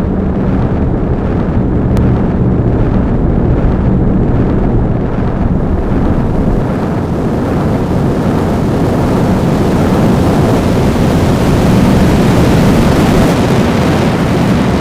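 Loud, dense wall of rumbling, distorted noise from an electronic track, with a low drone underneath. It grows brighter and more hissing through the second half.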